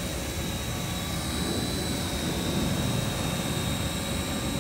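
Small toy quadcopter drone hovering, its motors and propellers giving a steady high whine.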